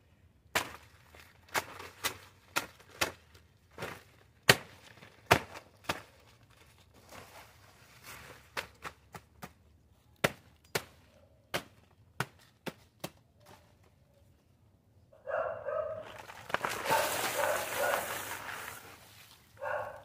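Sharp, irregular snaps and knocks, about one or two a second, as leaves and stalks are worked on a compost pile. Near the end come a few short barks, then a bucket of soil is tipped out over the leaves with a rushing pour lasting about three seconds.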